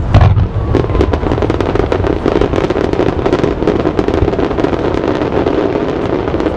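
Fireworks display: a rapid barrage of bursting shells and dense crackling, with deep booms at the start.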